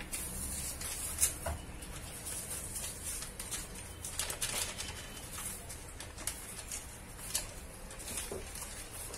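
Faint paper rustling and light ticks as a sachet of vanilla is shaken out over a stainless steel blender jug.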